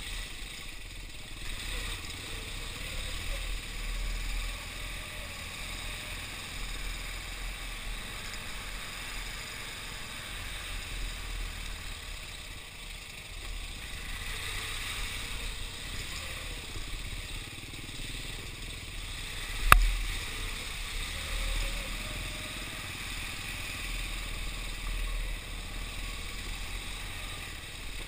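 Motorcycle engine running while riding a rough, muddy trail. The sound brightens about halfway through as it splashes through standing water, and a single sharp knock comes about two-thirds of the way in.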